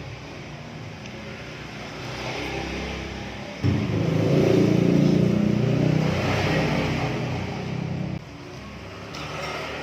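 Motor vehicle engine running, much louder for about four and a half seconds in the middle, starting and stopping abruptly.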